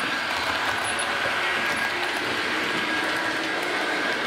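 HO-scale model train running along the track: a steady whir of the locomotive's motor and wheels on the rails.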